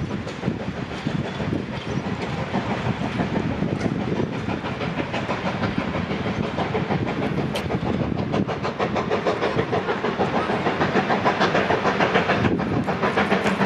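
Double-headed narrow-gauge steam train, one engine a QR AC16 class, working past with fast, rhythmic exhaust beats that grow louder as it comes closer.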